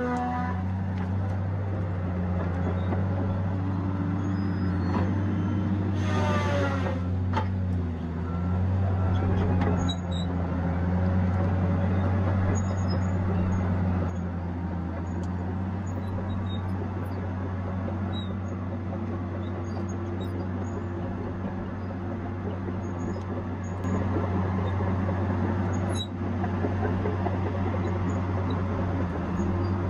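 Tigercat 870C tracked feller buncher's diesel engine running steadily under working load. It swells louder for several seconds twice as the machine works, with a few sharp knocks.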